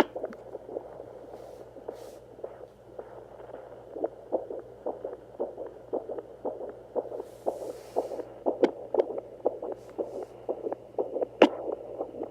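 Unborn baby's heartbeat heard through a fetal heart monitor: a fast, even pulse of soft thumps, a little over two a second, over a steady low hum. Two sharper, louder knocks come in the second half.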